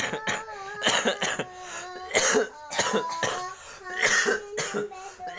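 A child making a string of short, harsh, cough-like squawks in imitation of a parrot, about ten in a row, with held, wavering vocal tones between them.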